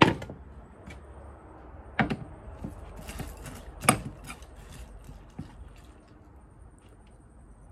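Metal spoon clinking against a ceramic bowl while scooping food: a few separate clinks about two seconds apart, the first the loudest.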